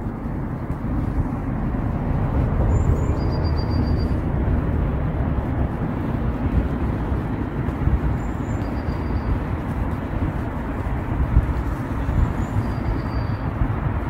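Wind buffeting an outdoor microphone: a steady low rumble that rises and falls in gusts, with a few faint, short, high chirps.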